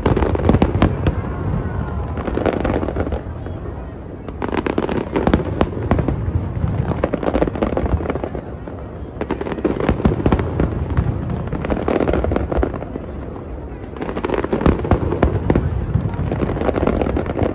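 Fireworks display: aerial shells bursting in dense volleys of bangs and crackling, with a deep rumble underneath. The volleys come in waves a few seconds apart.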